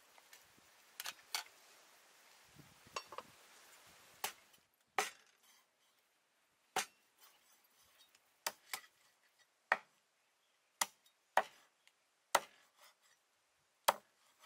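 A knife chopping raw chicken on a wooden chopping board: single sharp chops about a second apart, beginning about five seconds in. Before them comes a ladle clinking a few times against a metal pot over a faint steady hiss.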